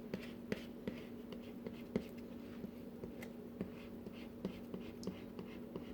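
Soft scattered taps and light scraping of a dough scraper and hands working sticky cinnamon-roll dough on a counter, over a steady low hum.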